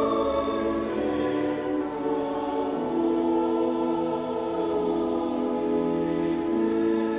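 Slow sacred music of long held chords that change every second or two.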